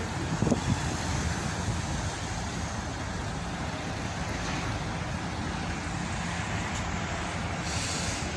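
Steady low rumble of a car ferry's engines, with wind on the microphone. A couple of brief thumps about half a second in.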